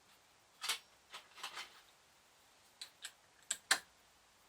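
Scattered light metallic clicks and clinks of a socket and its handle being fitted onto the small nut on the dynamo spindle, irregular and a few at a time, the sharpest near the end.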